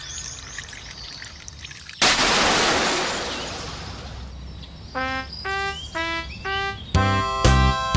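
Cartoon sound effects: a sudden rushing burst of noise about two seconds in that dies away over a few seconds, then short chiming notes alternating in pitch, and near the end a louder electronic warning tone repeating about twice a second, like a level-crossing bell.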